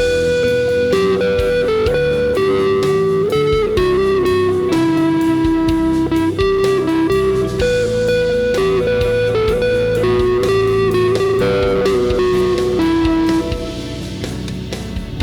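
Electric guitar playing an improvised lead of long sustained single notes through effects pedals over an ambient rock backing track. The lead stops near the end, leaving the backing.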